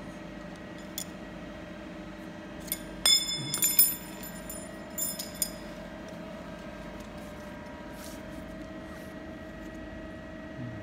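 Thin metal rods clinking against each other in the hand, a quick cluster of bright ringing clinks about three seconds in and a few more about two seconds later, over a steady machine hum.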